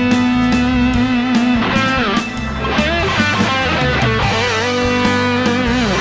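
Overdriven electric guitar lead through a Blackstar HT Club 50 valve amp on its lead channel, with the mids turned up and a delay added, over a rock backing track with drums. It holds a note with vibrato, bends up about two seconds in, plays a quick run of notes, then bends into another held note with vibrato near the end.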